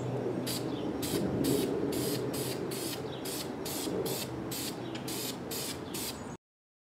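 Aerosol spray-paint can being fired in short sprays, about two a second, each a quick high hiss, until the sound cuts off suddenly near the end.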